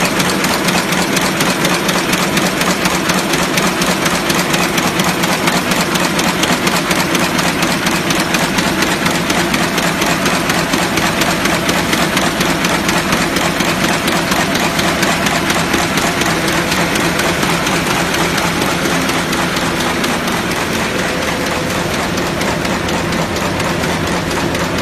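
HD190 roll-feed block-bottom kraft paper bag making machine running: a loud, steady, rapid mechanical clatter from its rollers, cams and folding arms, easing slightly near the end.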